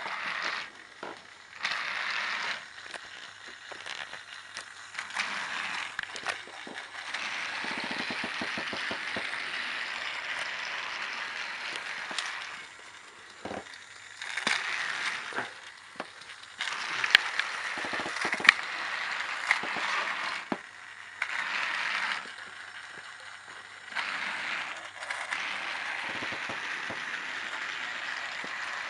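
Battery-powered Trackmaster Armoured Thomas toy engine running on plastic track: a steady whirring of its small motor and gears in long stretches with short breaks, plus scattered clicks and clatter.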